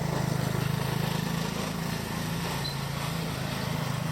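A small engine running steadily with a fast, even pulse, over a haze of outdoor noise.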